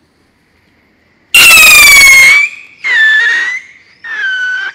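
Funke 3-stage Triller rocket whistling as it climbs: three howling whistles one after another, starting about a second and a half in, each lower and quieter than the one before, with short breaks between the stages.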